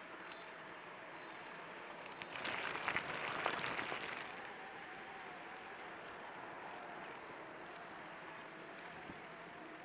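Recumbent tadpole trike rolling along a concrete path: steady tyre and drivetrain noise with a faint humming tone, and a louder spell of clicking and rattling from about two and a half to four seconds in.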